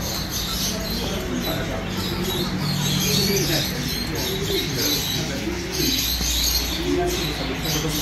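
Caged pigeons cooing, several low rising-and-falling calls one after another, over a steady low hum and the high chatter of other caged birds.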